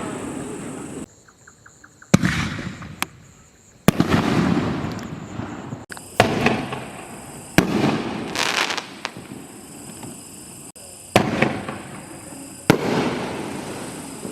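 50mm aerial firework shells being fired and bursting: about six sharp bangs spread over the stretch, each followed by a rumbling, echoing tail that dies away over a second or two.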